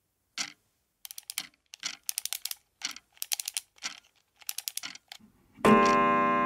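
Sharp clicks in quick, irregular clusters, then a loud low struck note about five and a half seconds in that rings on and slowly fades.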